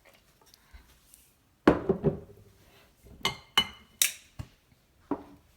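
Measuring cup and utensils knocking and clinking against a mixing bowl as sugar is added: a knock, then several sharp ringing clinks, a brief hiss and two more knocks.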